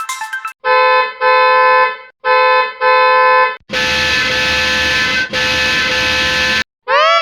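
FedEx truck horn sound effect, edited into variations: two pairs of steady horn honks, a short one then a longer one each time, then two longer honks overlaid with hiss and a low rumble. Near the end the horn comes back with its pitch wobbling up and down.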